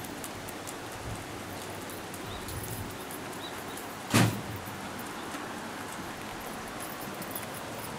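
Steady outdoor background hiss with one loud, short thump about four seconds in.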